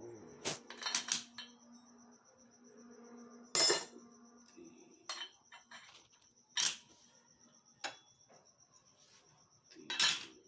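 Metal tools and parts clinking and knocking together in irregular sharp clinks, about eight of them, the loudest a little under four seconds in. A steady low hum runs underneath and stops about halfway, with a faint high whine throughout.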